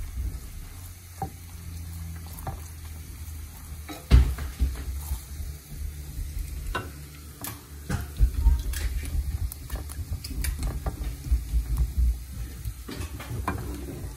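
Basting a roasting lamb loin: a spoon scraping and knocking irregularly against the hot pan while the juices and glaze sizzle.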